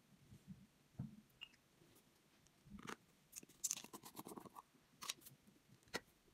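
Faint clicks and crackling scrapes of a plastic jar of acrylic paint being handled, its screw lid turned by the fingers, thickest about three to four and a half seconds in.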